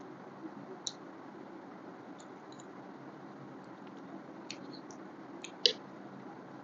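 Close-up eating sounds from someone chewing chicken thigh: a few sharp mouth clicks and smacks, one a little under a second in and the loudest about five and a half seconds in, over a steady low hiss.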